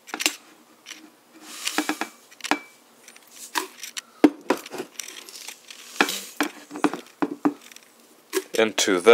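Powdered iced tea mix poured from a canister into a ceramic mug: short rustling hisses of the pouring powder mixed with a string of separate knocks and clatters as the canister and mug are handled on the countertop.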